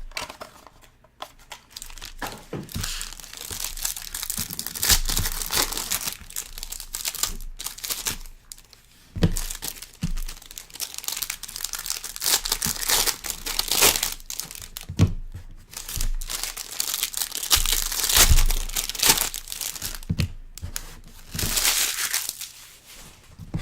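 Plastic wrapping crinkling and tearing in irregular bursts, with small knocks of cardboard and cards being handled, as a sealed Panini Treble soccer card box is unwrapped and opened.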